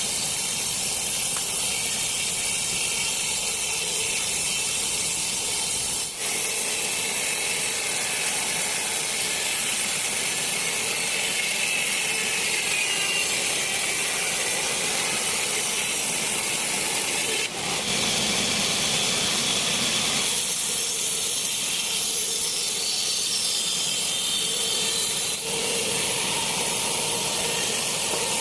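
Sawmill saw running steadily through a long teak log, ripping it lengthwise into a beam, a continuous hissing, high-pitched cutting noise with a few momentary dips.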